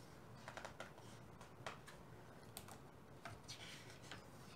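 Faint paper rustling and small ticks as a picture book's page is handled and turned by hand.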